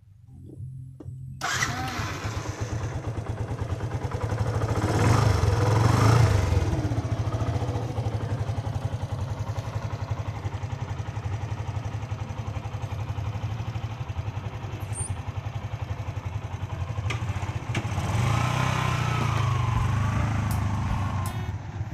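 Yamaha FZ16's single-cylinder four-stroke engine starting: a brief crank, then it catches about a second and a half in. It revs up around five seconds in, settles to a steady idle, and rises again near the end as the motorcycle pulls away.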